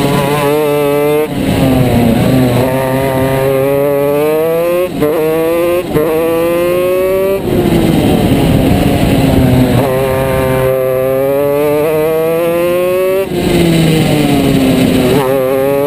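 Shifter kart engine running hard on track, its pitch climbing under acceleration and broken several times by sudden brief drops as it shifts up through the gears. Near the end the pitch falls away as it slows.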